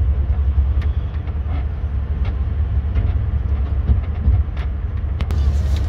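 Ride in an open land-train carriage: a steady low rumble from the moving train, with occasional short knocks and rattles.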